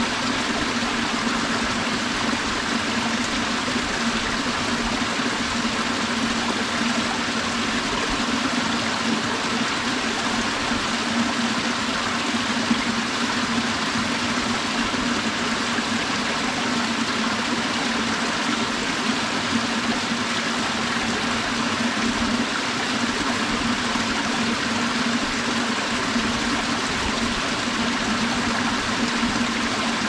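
Mountain valley stream flowing over rocks: a steady, even rush of water that does not let up.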